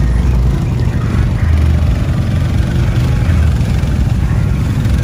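Off-road vehicle engine running with a deep, continuous rumble.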